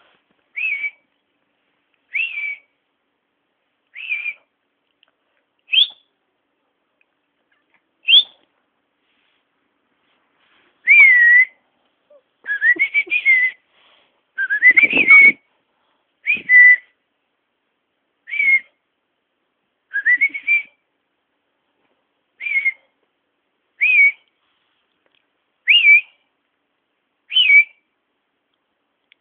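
A person whistling short high notes to a cat, one every one and a half to two seconds, some gliding up and some gliding down. A few louder, fuller calls come close together about halfway through.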